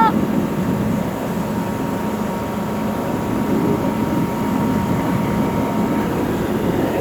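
Heavy truck machinery of a concrete pump and mixer truck running steadily: a diesel engine hum with a faint steady whine that fades out about six seconds in.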